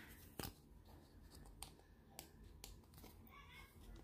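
Faint, scattered clicks and light rustling of fingers handling a hard plastic diamond-painting keychain and its peel-off protective film.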